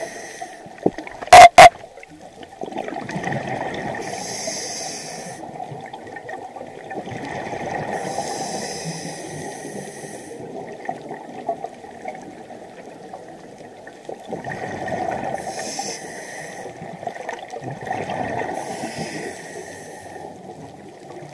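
Scuba diver breathing through a regulator, heard underwater: a hissing inhalation every few seconds, alternating with bubbling, gurgling exhalations. A few sharp knocks about a second and a half in are the loudest sound.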